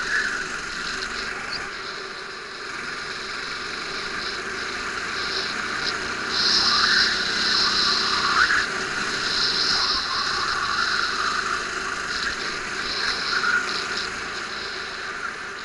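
Go-kart engine running at race speed, its pitch rising and falling several times as the driver works the throttle through the corners.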